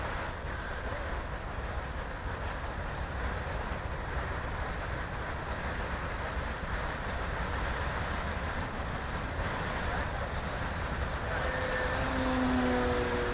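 Strong wind rushing and buffeting over the microphone, a steady low rumble with hiss. Near the end a brief steady hum with a few pitches rises above it and fades.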